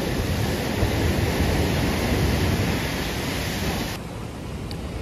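Ocean waves surging and splashing against a seawall, a steady rush of surf and spray that drops to a quieter wash about four seconds in.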